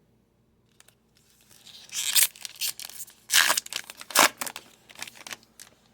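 A baseball card pack's wrapper being torn open and crinkled by hand: a series of sharp crackling tears, loudest in three bursts in the middle.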